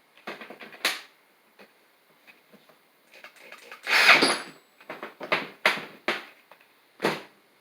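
Irregular knocks and clatter of metal parts being handled and fitted while a bench vise is reassembled, the loudest a rough rattling burst about four seconds in.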